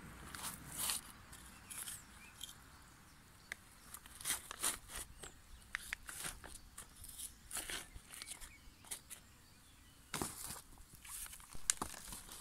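Small hand trowel digging into clay soil, making a series of short, irregular scrapes and crunches.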